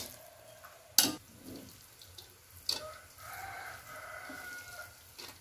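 Metal spatula stirring fried noodles in a metal wok, knocking sharply against the pan about a second in and again near the three-second mark. A faint drawn-out sound follows in the background.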